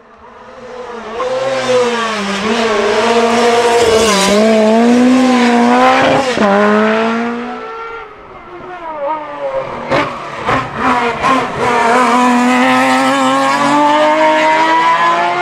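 Historic rally car engines at high revs as cars come past at racing speed. One engine swells up, its pitch dipping at gear changes, then fades away. A quick series of sharp cracks follows, then another engine climbs steadily in revs.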